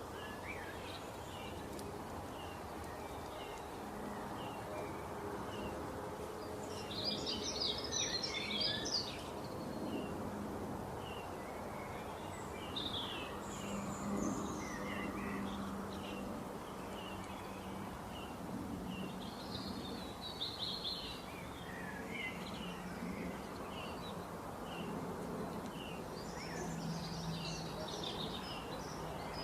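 Small birds chirping and singing in scattered bursts over the steady rush of running water. The busiest song comes about seven to nine seconds in, with further flurries around a third of the way through, two-thirds of the way through, and near the end.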